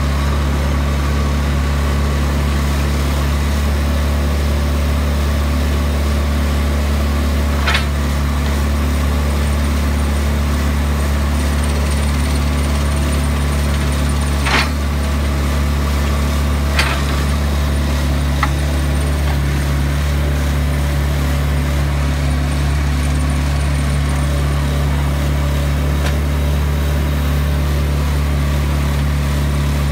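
Vermeer D16x20 Series II horizontal directional drill's diesel engine running steadily, with a few short sharp knocks about 8, 15 and 17 seconds in.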